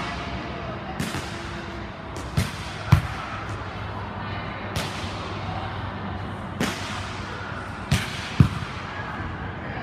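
Volleyballs being struck in a passing drill: about seven sharp slaps of hand and forearms on the ball and thuds of balls landing on the sport-court floor, twice as quick pairs about half a second apart.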